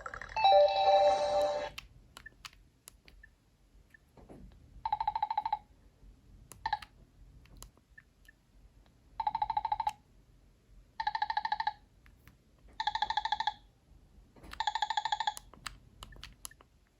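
Nokia 7710 ringtones: a musical ringtone ends in the first couple of seconds, then a trilling, telephone-ring-like tone sounds in short bursts, about six times, the last four evenly spaced a little under two seconds apart.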